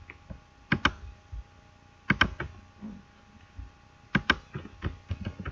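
Clicks of a computer mouse and keyboard, coming in close pairs three times with a few lighter single clicks between.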